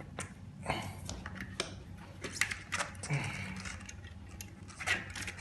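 Scattered metallic clicks, clinks and scrapes as a bicycle wheel and its old, rusted quick-release skewer are worked loose and lifted off the frame.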